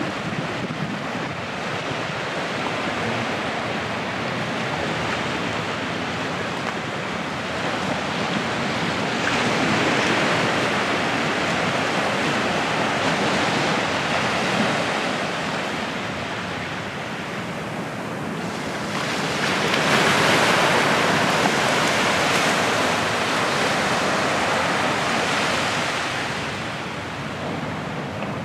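Sea surf breaking and washing up the beach in a steady rush that swells twice, about ten seconds apart.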